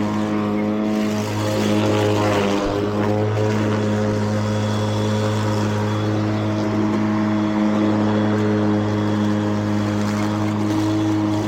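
Battery-electric remote-control lawn mower running with its cutting blade spinning: a steady, even motor hum.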